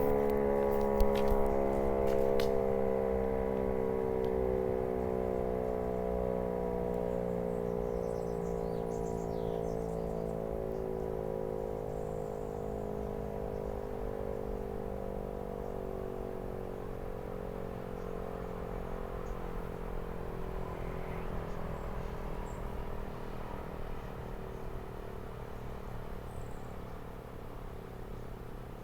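Model 5A single-tone three-phase outdoor warning siren winding down, its single tone sliding slowly lower in pitch and fading.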